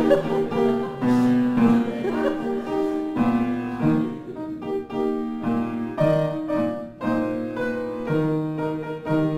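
Piano soundtrack music: a lively piece with chords struck about twice a second.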